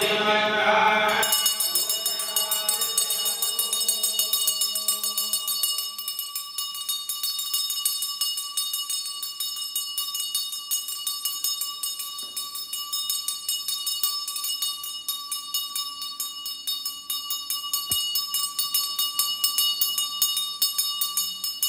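Chanting voices stop about a second in, and a puja hand bell (ghanta) is then rung continuously with fast, even strokes, a steady high ringing.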